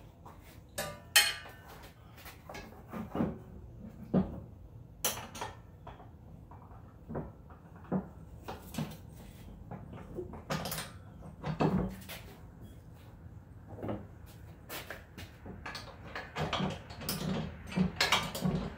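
Irregular knocks and clunks of a Buyers ATV spreader's plastic hopper being handled and fitted onto a welded steel mount, busier near the end.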